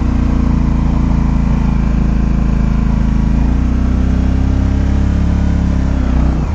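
Polaris Sportsman 850 ATV's twin-cylinder engine running at walking pace while pushing a snow plow, its pitch wavering a little. Near the end the engine note drops back as the throttle eases off.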